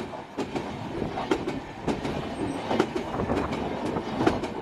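Humsafar Express LHB coaches passing close at speed, their wheels clacking over the rail joints in a quick, uneven run of clicks over a steady rumble.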